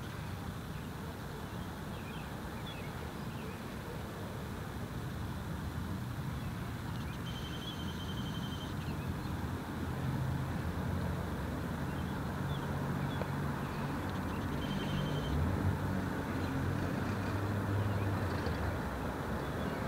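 Road traffic: a vehicle's engine running nearby with a low hum that grows louder through the second half, over steady background noise, with faint chirps and two brief high beeps.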